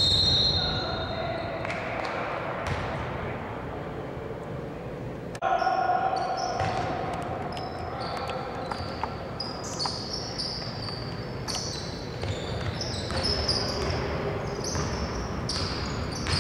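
Basketball game sounds in a large arena: a ball bouncing on a hardwood court amid players' sneakers squeaking. The sound changes abruptly about five seconds in.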